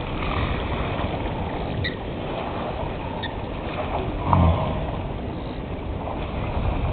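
Steady low rumbling outdoor background noise with a brief, louder low thud about four seconds in.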